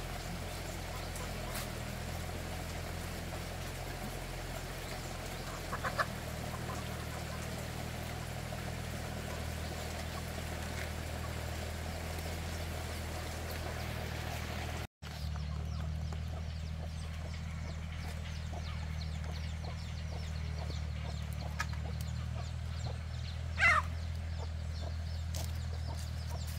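Chickens calling a couple of times over a steady low hum, the louder call near the end.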